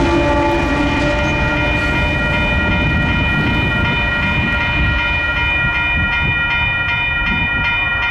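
Union Pacific train running by on the main line, a loud rumble with a steady high-pitched ringing tone held over it.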